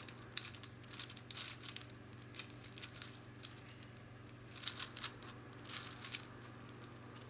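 Gear Ball twisty puzzle turned by hand: irregular, faint plastic clicks and clatters from its gears as the faces are twisted.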